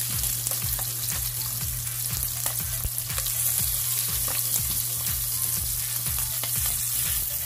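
Seasoned chicken thighs sizzling in hot olive oil in a nonstick pan, a steady hiss with frequent small crackles and pops, while more thighs are laid in skin side down. A steady low hum runs underneath.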